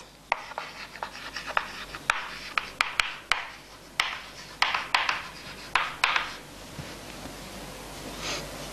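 Chalk writing on a chalkboard: a quick run of taps and short scratchy strokes, which stop about six seconds in.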